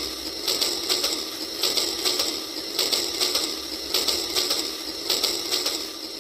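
Battery-powered toy train running along its track: a rapid mechanical clicking clatter from its motor, gears and wheels, swelling in pairs of louder beats about once a second.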